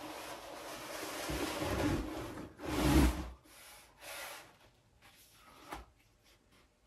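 Interlocking foam floor mat rubbing and sliding over a wooden workbench as its silicone-coated puzzle edges are pushed back together, with a heavy thud about three seconds in as it is pressed down flat. A few short rubs and a click follow as the joined seam is pressed down by hand.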